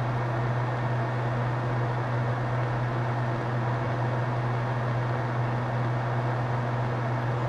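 Benchtop solder fume extractor fan running steadily: a constant low hum under an even rush of air.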